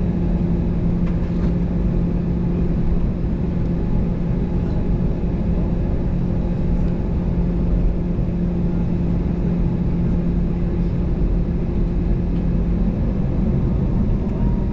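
Cabin noise of an Airbus A320-214 taxiing: a steady low rumble with the even hum of its CFM56 jet engines at low thrust.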